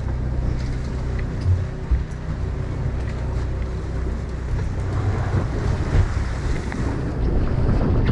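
Wind buffeting the microphone and waves washing against the fishing boat's hull, over the steady low hum of the boat's engine. The wind and water noise grows louder near the end.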